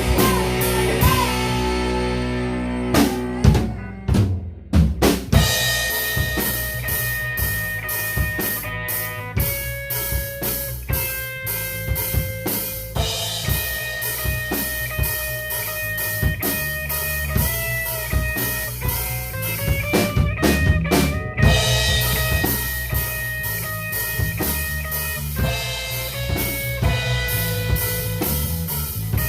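Instrumental section of a rock song: a drum kit keeps a steady beat under electric guitar holding long, bending lead notes. About three seconds in the band drops to a short drum break before the full band comes back in.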